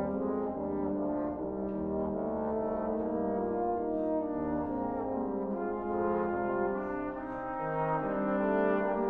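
Trombone choir playing slow sustained chords, several parts moving together from chord to chord.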